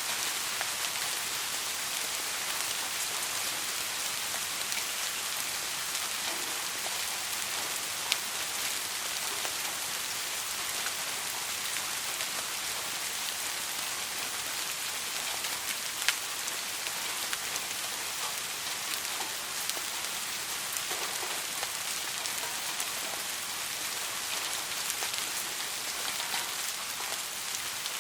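Steady rain falling on a surface, an even hiss with a few sharper individual drop hits, one near the middle louder than the rest.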